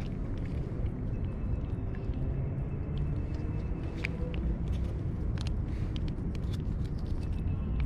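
Small scattered wet clicks of a cat licking a paste treat and chewing dry kibble, over a steady low rumble.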